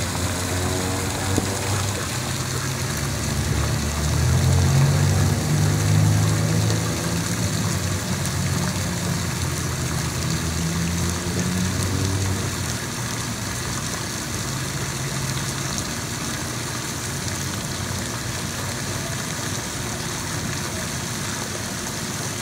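Low engine rumble over a steady hiss, loudest in the first half and dropping away about thirteen seconds in.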